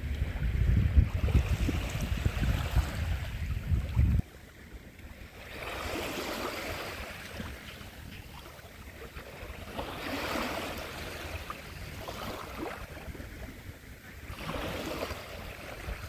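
Small Baltic Sea waves lapping in and out over a pebble shore, a soft swell of wash every four to five seconds. For the first four seconds a louder low rumble of wind buffeting the microphone lies over it, then stops suddenly.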